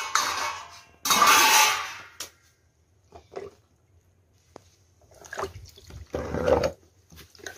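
Water sloshing and splashing in an aluminium pot as hands grab and rub small whole fish in it: two loud splashy bursts in the first two seconds, a few small knocks, then another longer splashy stretch about five to seven seconds in.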